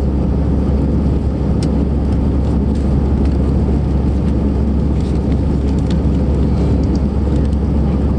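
Steady jet engine and airflow noise heard inside an airliner's passenger cabin: a loud, deep, even rumble with no change in pitch or level.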